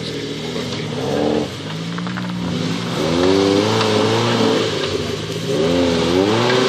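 Suzuki SJ off-roader's small four-cylinder petrol engine revving up and down repeatedly under load as it crawls up a rock mound. The revs rise and fall in short surges and get louder about halfway through.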